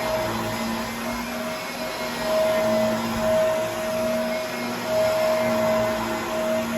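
Vacuum cleaner running, its motor whine breaking off and coming back every second or so while the overall level swells and dips.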